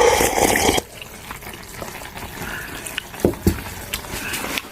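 Liquid poured into a cooking pot for just under a second, then a low steady bubbling with two light knocks of utensils about three seconds in.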